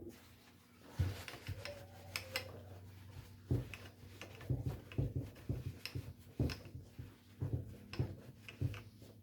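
Irregular clicks and knocks of tools and small parts being handled on a workbench, roughly one or two a second, over a faint steady hum.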